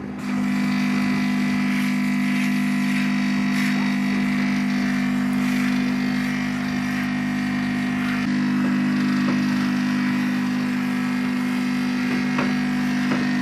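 Numatic Henry Wash carpet and upholstery cleaner running in shampoo mode, its water pump giving a steady low hum while cleaning solution is sprayed through the upholstery tool onto a fabric sofa.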